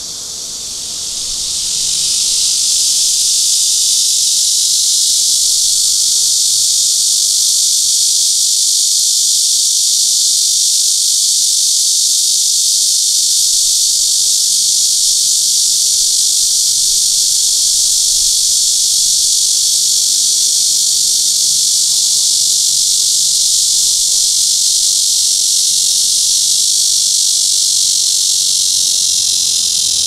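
A bear cicada (Cryptotympana) singing its loud, continuous, high buzzing song. It swells up over the first couple of seconds and then holds steady.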